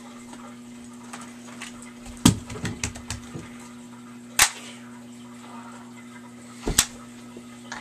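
Orange toy gun clicking three times, about two seconds apart, the first the loudest. A steady low hum runs underneath.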